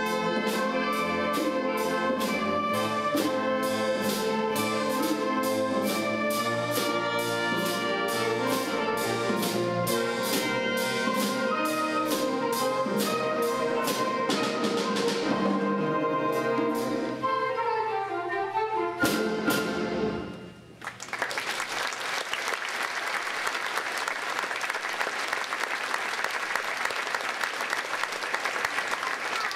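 Middle school concert band playing, brass in front over a steady percussion beat; the music winds down in a falling run and ends on a final chord about nineteen seconds in. Audience applause follows.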